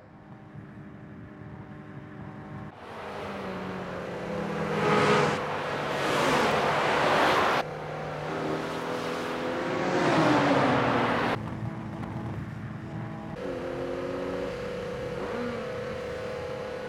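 Sports car engines at speed, among them the Nissan Fairlady Z: engine notes rising and falling as they rev and shift. Twice a loud rush of cars passing swells up and cuts off suddenly, and a steadier engine drone follows.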